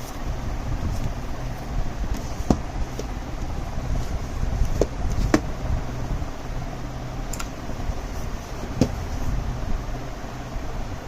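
Packaging and the mouse being handled during unboxing: a handful of short, sharp clicks and taps over a steady low hum.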